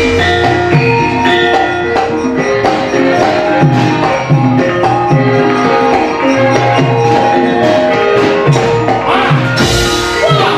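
Javanese gamelan playing: held, ringing metallophone notes over low hand-drum strokes that drop in pitch, about two a second. A brief noisy clash comes near the end.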